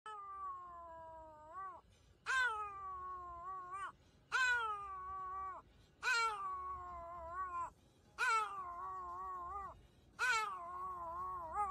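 Small fluffy dog howling, six drawn-out howls about one every two seconds. Each starts high, slides down, holds steady, and wavers slightly at the end.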